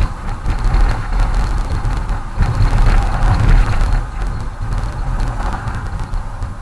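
Road and engine noise inside a car cruising at about 40 km/h: a steady low rumble with tyre hiss.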